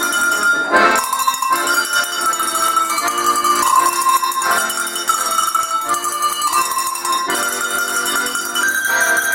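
A tune played on a set of tuned cowbells with accordion accompaniment: the bells ring out the melody note by note over held accordion notes.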